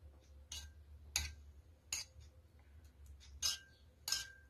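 A spoon clinking against a glass bowl while spooning thick yogurt marinade over a chicken drumstick: about five light clicks, the last two near the end ringing briefly.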